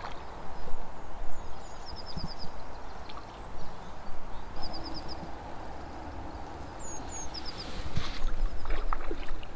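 Wind buffeting the microphone outdoors, with a small songbird giving a quick high trill of about five notes three times, and a few light clicks.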